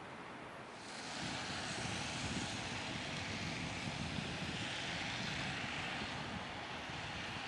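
Steady rushing noise of vehicle traffic, with tyre hiss from the wet road, starting about a second in and easing slightly near the end.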